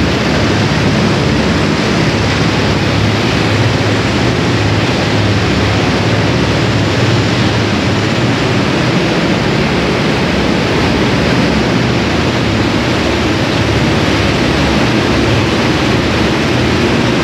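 Cotton ginning plant machinery running: a loud, steady, even noise with a low hum underneath and no change throughout.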